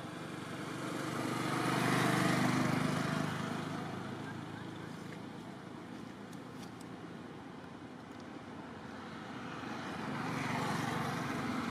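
Road traffic passing: a vehicle's noise swells and fades about two seconds in, and another swells near the end.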